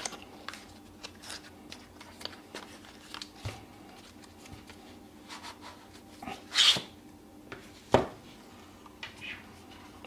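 A small paperboard product box being opened by gloved hands: scattered light taps and rustles, a short sliding scrape as the inner tray slides out of its sleeve about two-thirds through, and a sharp tap about a second later.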